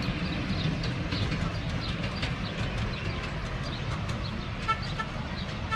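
Miniature railway train running along its narrow-gauge track: a steady low rumble with light ticking. A few short high toots come near the end.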